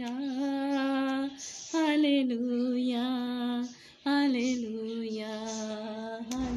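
A woman singing a Hindi-Urdu worship song on her own with no accompaniment, holding long steady notes through three phrases of "Hallelujah". A brief knock comes near the end.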